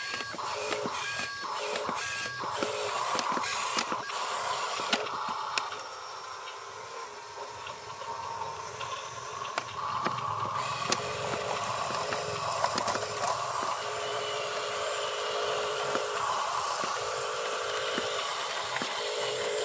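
Electric drive motor and gearbox of a radio-controlled toy dump truck whining steadily as it drives over dirt, with scattered clicks of tyres on pebbles. A few short beeps sound in the first two seconds, and the whine drops quieter for a few seconds about a third of the way in before picking up again.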